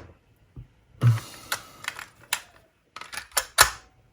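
A scattering of sharp clicks and light taps from hands working at the bench, with a soft thump about a second in and a cluster of louder clicks near the end.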